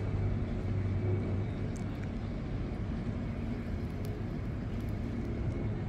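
Steady low engine drone with a faint higher whine, a little louder in the first second or so.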